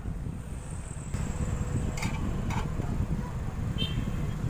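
A steady low background rumble, with three light clicks and taps as an amplifier circuit board is handled and turned over on the bench.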